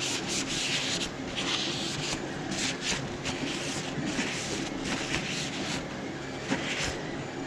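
Cleaning the inside of a resin printer: about ten short, irregular scratchy bursts of rubbing or hissing, over a faint steady hum.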